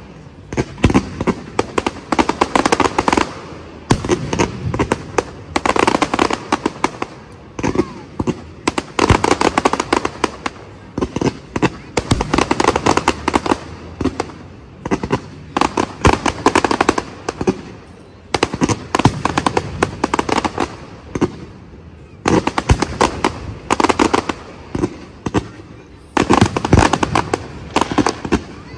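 Aerial fireworks display: shells bursting into crackling stars, heard as dense waves of sharp cracks and bangs a second or two long, with short lulls between.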